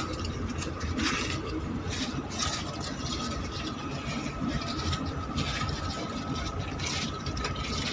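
A block of margarine in its paper wrapper rubbed over the tops of freshly baked bread rolls, several soft rubbing strokes at irregular intervals. A steady machine hum with a faint whine runs underneath.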